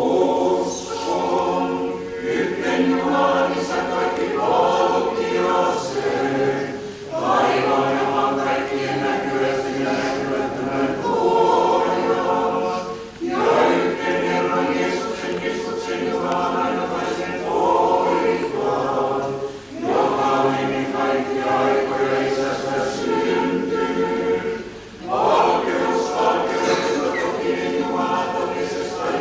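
Orthodox church choir singing liturgical chant a cappella, in long sustained phrases with a brief break for breath about every six seconds.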